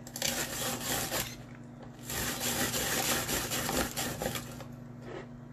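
Cabbage being grated in a Tupperware Fusion Master rotary cone shredder: a scratchy rasping in two spells, the first about a second long and the second about two seconds.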